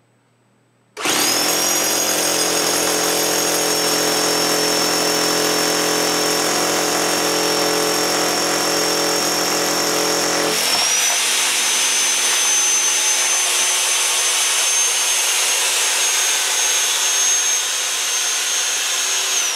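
Electric concrete drill boring into a concrete slab floor with a masonry bit: a loud, steady whine that starts about a second in. About halfway through its pitch steps up and the low hum drops away, and it winds down at the very end.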